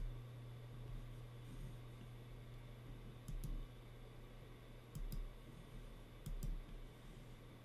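Computer mouse clicking three times, each a quick double click of press and release, over a low steady hum.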